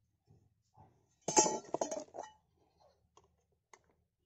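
Small metal parts of a chain saw attachment clinking and rattling together as they are handled: one burst of clinks a little over a second in, lasting about a second, with a few faint ticks before and after.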